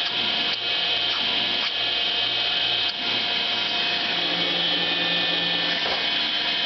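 1912 TUEC Model 210 central vacuum running steadily, its 240-volt motor and single large impeller giving an even whine over a rush of air. A water lift gauge seals the inlet and reads only about 10 inches, which the owner suspects is a low reading.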